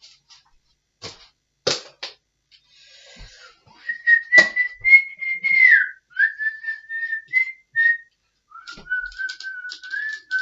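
A few sharp clicks and knocks, then from about four seconds in a person whistling a few long, wavering notes with short breaks between them, the last ones lower.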